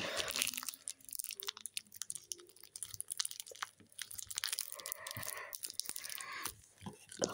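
Thin plastic bag and tissue paper crinkling and tearing as they are pulled off a wrapped egg by hand, a dense run of crackles.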